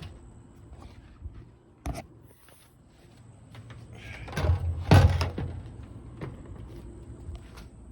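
Handling noises: a sharp knock, then a scraping rustle building to a heavy thump about five seconds in.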